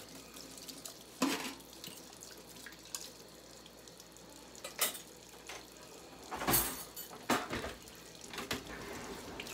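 Kitchen tap running into a sink while dishes are rinsed, with a few knocks and clatters of the items being handled, the loudest about two-thirds of the way through.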